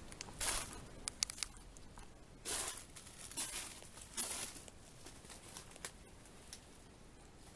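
Footsteps crunching over snow and debris, an irregular run of steps with a few sharp cracks, stopping about five seconds in.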